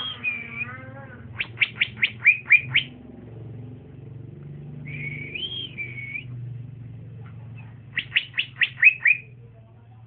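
Young male cucak ijo (green leafbird) singing: a quick run of about seven sharp falling notes, then a warbled phrase, then another run of sharp notes near the end.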